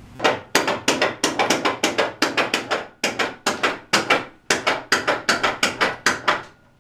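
A rapid run of sharp knocks or percussive strikes, about four a second and uneven in loudness, each ringing briefly; it stops near the end.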